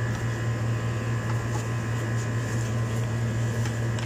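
Steady low hum with faint, steady high whining tones above it, and a couple of light clicks near the end.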